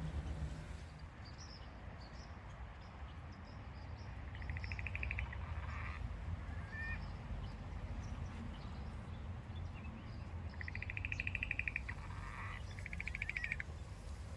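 Animal calls: short buzzy rattling calls, each a fast trill, once about four and a half seconds in and twice more near the end, over a steady low rumble.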